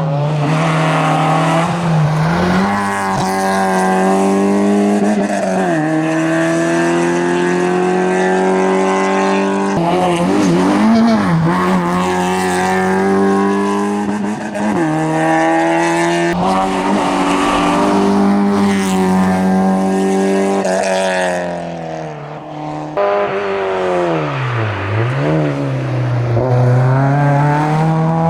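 Citroën Saxo hillclimb car driven flat out: the engine's pitch climbs as it revs hard and drops sharply at each gear change or lift for a corner, over and over. Near the end a Peugeot 106 race car takes over with the same hard revving and shifting.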